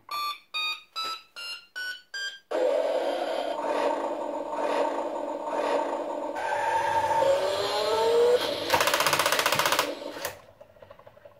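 Hot Wheels Formula Fuelers Skyforce toy rocket truck playing its electronic launch sound effects: six short beeps climbing in pitch, then a long noisy rocket-engine effect with wavering tones and a rising whine, and a loud fast buzz about nine seconds in before everything cuts off about ten seconds in.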